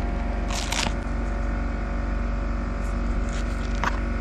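A steady engine hum runs underneath throughout. On top of it, a plastic pack of sanding discs crinkles as it is handled, once about half a second in and again briefly near the end.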